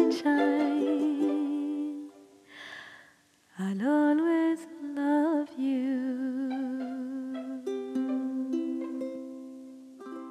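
Slow ukulele music with a voice humming long wordless notes with vibrato. After a brief pause the voice slides up into a note, then holds a long note over single plucked ukulele notes, and the sound fades near the end.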